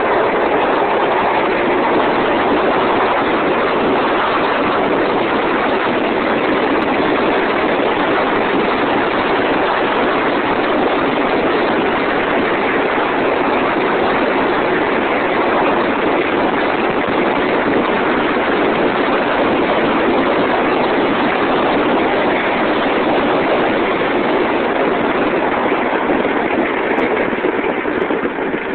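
Go-kart's single-cylinder Harbor Freight Predator engine with a torque converter running steadily at speed under a rider, easing off slightly near the end.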